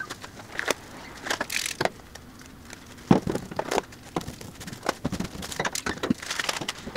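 Scattered clicks, taps and short rustles of hands setting up a tattoo workstation: nitrile gloves pulled on, then small plastic ink caps and supplies set down on a plastic-wrapped tray.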